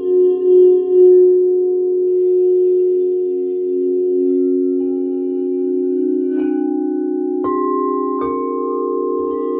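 Crystal singing bowls ringing together in several sustained low tones with a slow wavering pulse, as a wand works the rim. Three soft strikes in the last few seconds each add a new, higher ringing tone.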